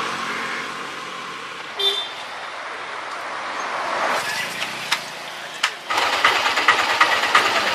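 Road traffic passing. Then, about six seconds in, a motor scooter's small engine runs close by with an even, pulsing beat.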